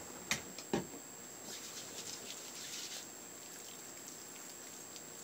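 Two short clicks from handling the cleanser bottle, then faint wet rubbing and crackling as charcoal facial wash is spread between the hands and over the face.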